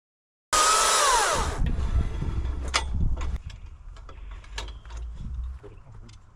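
Stihl 661 two-stroke chainsaw coming in loud at high revs, its pitch dropping sharply about a second in as the throttle is let off. It then runs low with scattered knocks and clicks, dying away about five and a half seconds in.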